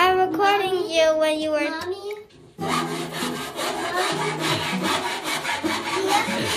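A singing voice carries a melody for about the first two seconds. It breaks off, and then a hand saw cuts through a white board in quick, even back-and-forth strokes, about four or five a second.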